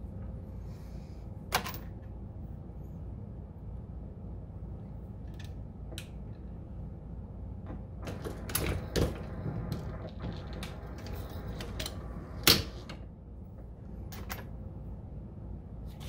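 Progressive reloading press decapping brass cases with an FW Arms decapping die: scattered metallic clicks and clacks a few seconds apart over a low steady hum, the loudest clack about three-quarters of the way through.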